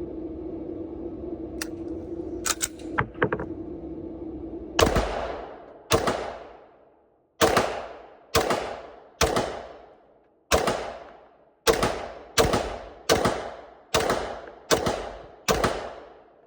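SIG Sauer P320 X5 9mm pistol fired twelve times at a slow, even pace of about one shot a second, each shot trailing off in a long echo. A few light clicks come before the first shot, which lands about five seconds in.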